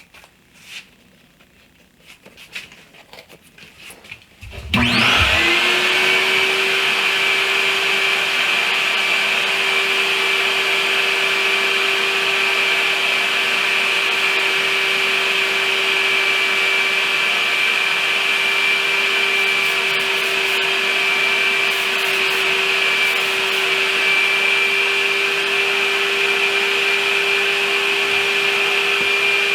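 Electric paint sprayer switched on about five seconds in: its motor spins up with a rising whine, then runs steadily with an airy hiss while it sprays a topcoat. A few light knocks come before it starts.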